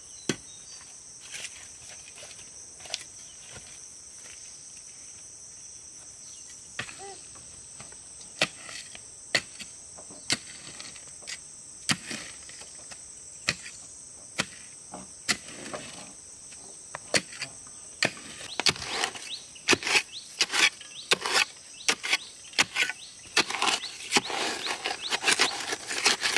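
Insects chirring in a steady, high, even drone, under sharp knocks about every second or so that come faster and closer together over the last several seconds.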